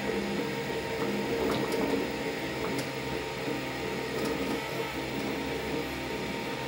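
Velleman Vertex K8400 3D printer printing: its stepper motors whine in short tones that change pitch every fraction of a second as the print head moves, over the steady hum of its cooling fan.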